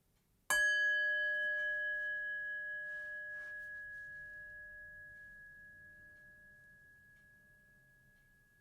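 A bell is struck once about half a second in, and its clear ring of several tones fades slowly over the following eight seconds.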